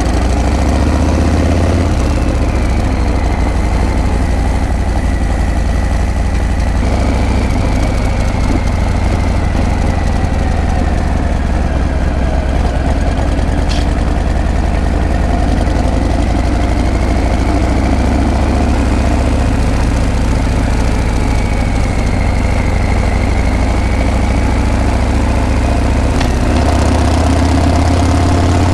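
Harley-Davidson Breakout's V-twin engine and exhaust running steadily, a loud deep burble throughout.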